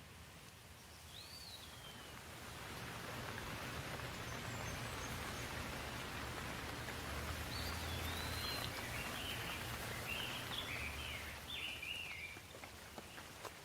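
Rain falling, swelling to a heavier patter with a low rumble under it for several seconds, then easing off. Birds chirp over it, once near the start and repeatedly in the middle.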